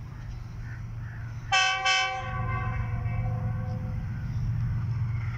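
Diesel locomotive horn sounding two short blasts about a second and a half in, its lower notes trailing off over the next two seconds, over the steady low rumble of a freight train.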